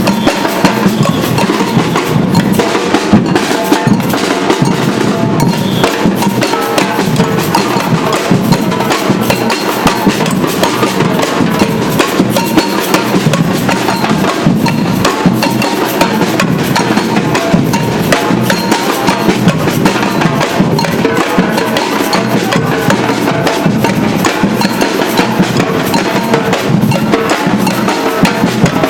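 Batucada drum band playing a steady, driving street rhythm, with snare drums rattling over deep bass drums and sharp woody clicks.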